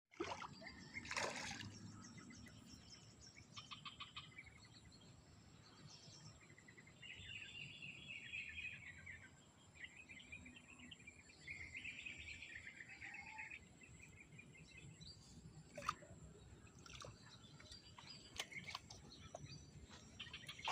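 Faint bird chirps and trills over a low outdoor hiss, with a few sharp clicks, the loudest about two-thirds of the way through.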